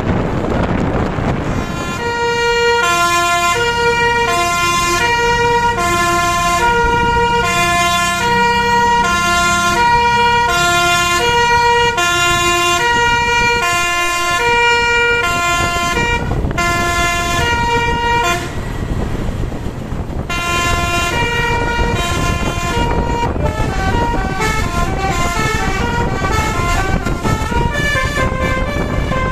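Basuri 'telolet' multi-tone air horn on a tour bus playing a looping tune of short stepped notes. It breaks off briefly about two-thirds of the way through, then starts again with a quicker run of alternating notes. A steady low rumble of noise lies underneath.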